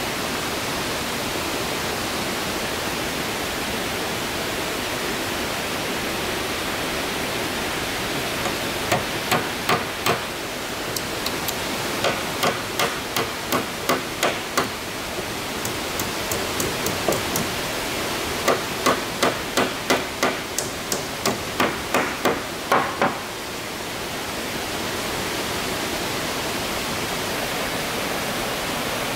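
Hammer driving nails into the wooden boards of a small plank roof: runs of sharp knocks, about two a second, through the middle of the stretch, over a steady rushing hiss.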